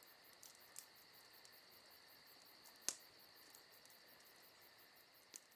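Near silence: room tone with a faint steady high whine and a few soft clicks, the loudest about three seconds in.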